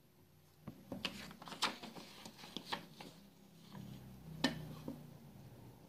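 Light clicks, taps and paper rustling as a pen and a clear plastic ruler are handled and set down on a sheet of paper, with one sharper click about four and a half seconds in.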